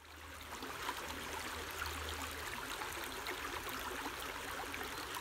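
Shallow brook running over a stony bed: a steady babble of flowing water.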